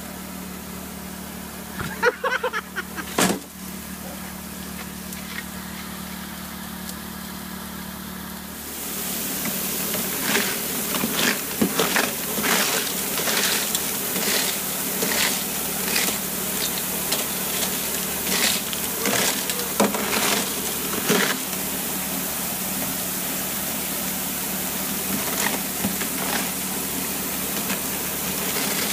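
A small engine-driven water pump runs steadily, feeding a highbanker. About nine seconds in, water starts spraying from the spray bar, and gravel and stones clatter and rattle on the punched-metal classifier plate as they are washed down. A few loud knocks come about two to three seconds in.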